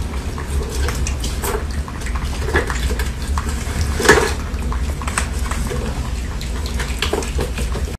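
Plastic balls rattling and clicking around the tracks of a pink tower ball toy as kittens bat at it: irregular light clicks and knocks, the loudest about four seconds in, over a steady low hum.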